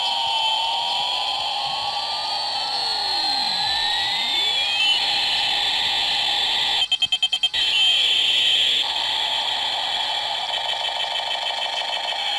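Steady buzzing electronic sound effect made of held synthetic tones with pitches sweeping up and down across each other, broken a little past halfway by a quick stutter of about eight pulses.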